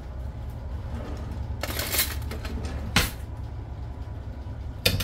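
Butter and kitchen utensils handled at the counter as cold butter goes into a bowl of mashed potatoes: a short scrape about two seconds in, a sharp knock about a second later, and a couple of clicks near the end, over a steady low hum.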